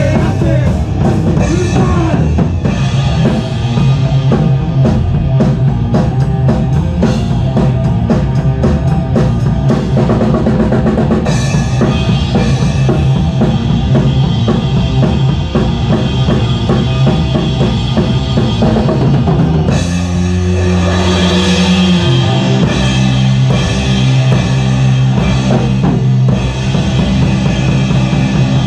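Doom stoner rock band playing loud, recorded on a camera's own microphone in a rehearsal room: a pounding drum kit over sustained heavy low bass and guitar notes. About twenty seconds in the drums briefly drop back, leaving the held low notes, then the full band comes back in.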